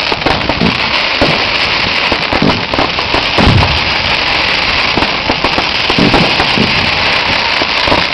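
Fireworks going off in quick succession: a dense run of bangs and crackles with occasional deeper thuds.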